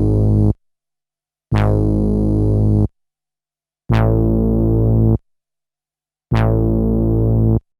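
A sampled synthesizer-keyboard note played back from a 12-bit SP-1200 sampler, repeated: one note is ending as it begins, then three more, each held about a second and a quarter and cut off sharply, with short silences between. Each note is bright at its start and quickly mellows to a low tone.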